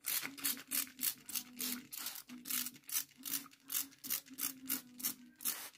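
Hand-held trigger spray bottle misting water onto potting soil, pumped in quick repeated squirts of about three a second, each a short hiss.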